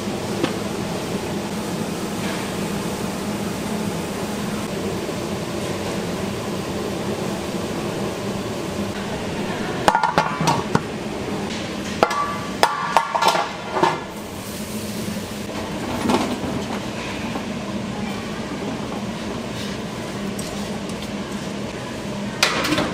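Steady hum of commercial kitchen machinery and ventilation. About ten seconds in comes a few-second run of sharp metal clanks and clinks from kitchen utensils and containers, with one more clank near the end.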